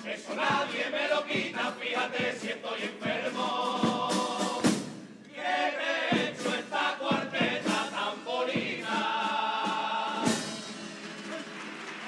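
A men's murga chorus singing in harmony, backed by guitar and sharp percussive hits. Twice the chorus holds a long chord, and the song ends on a last hit about ten seconds in.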